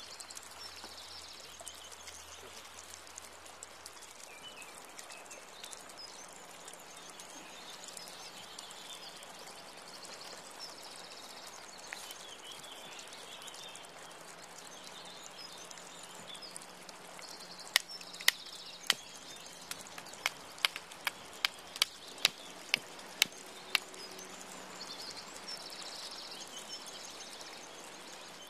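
Steady outdoor background ambience with faint high chirps. Past the middle comes a run of about a dozen sharp clicks or taps in quick, uneven succession.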